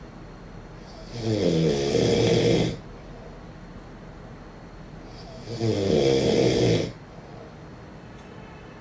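A sleeping person snoring: two long snores about four seconds apart, each lasting about a second and a half, with quieter breathing between them.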